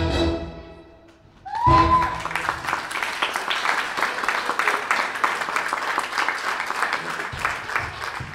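Dance music fades out. After a short lull an audience breaks into applause, with a brief cry as the clapping starts, and the clapping keeps going.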